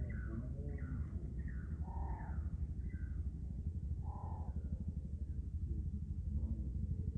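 A low, steady engine rumble with a fast, even pulse, and birds calling over it: a run of short chirps in the first three seconds and a few fuller calls about two and four seconds in.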